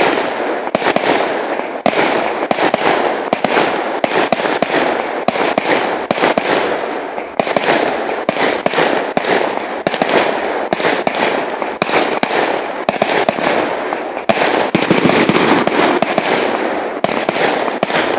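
Fireworks display: aerial shells bursting in a rapid, unbroken string of bangs over a dense wash of noise. It grows louder in the last few seconds.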